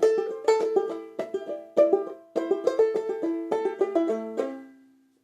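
Banjolele tuned gAEa, played clawhammer style: a quick tune of plucked notes in short phrases, ending on a ringing note that fades out near the end.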